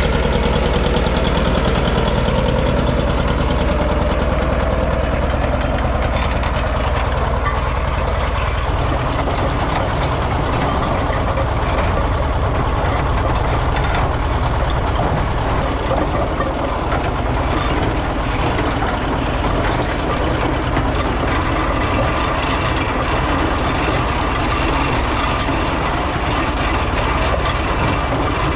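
John Deere 730 Diesel's two-cylinder diesel engine running steadily under load as it pulls a culti-mulcher. About nine seconds in the sound turns to a closer, noisier rattle and clatter of the Brillion Pulvi-Mulcher's steel frame, spring teeth and wheels working the soil, with the engine still running behind it.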